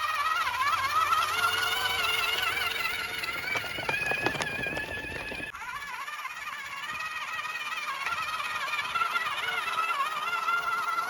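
High-pitched whine of a radio-controlled construction model's electric motor, wavering in pitch as the load changes, with a burst of clattering and scraping about four seconds in.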